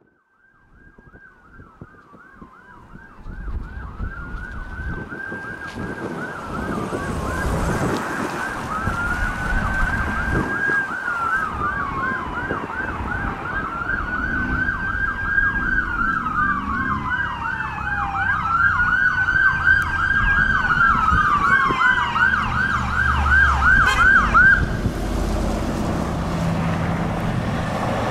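2012 Pierce Velocity fire engine's siren sounding as the truck approaches, getting steadily louder: slow rising-and-falling wails alternating with fast yelps. The siren cuts off suddenly about 25 seconds in, leaving the truck's engine running as it draws near.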